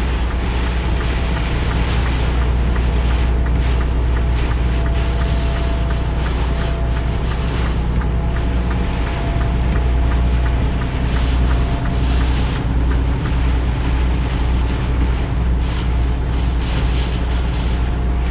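Heavy rain and hail pelting the cab and windshield of a moving semi truck as a dense patter of small hits, over the truck's steady low engine and road rumble.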